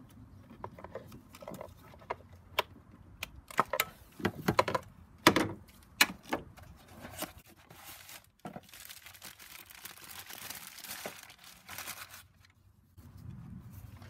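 Hand work on a BMW N54 ignition coil with the engine off: a screwdriver and the coil's plastic clips give scattered sharp clicks and knocks as the coil is pried loose, the loudest about five seconds in. After that comes a few seconds of steady crinkling rustle.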